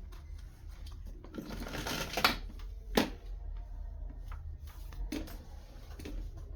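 Hands handling the laptop on the bench: a rustle, then two sharp clicks about a second apart, and a few lighter clicks later, over a steady low mains hum.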